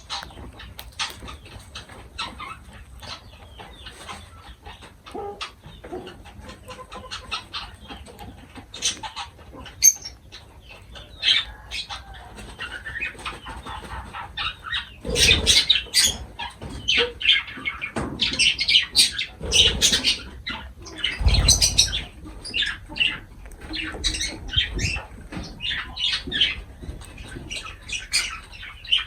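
Lovebirds chirping and squawking in many short, high calls, with a few louder bursts of wing flapping around the middle.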